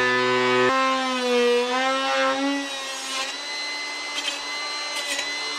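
Handheld rotary power tool with a carving bit grinding detail into a wood carving. Its motor whine sags and recovers in pitch as the bit bites into the wood, then about three seconds in settles into a steadier, quieter whine.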